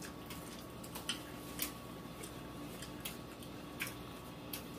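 Quiet eating sounds of saucy chicken wings being handled and eaten: a handful of faint, scattered clicks and small wet smacks, over a faint steady hum.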